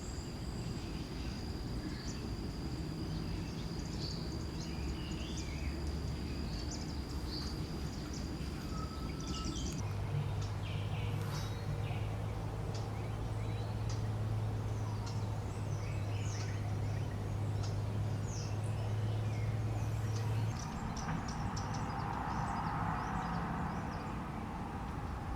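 Outdoor ambience with scattered bird chirps and calls over a steady rushing background. A steady high insect-like whine runs through the first ten seconds. A steady low hum runs from about ten to twenty seconds in.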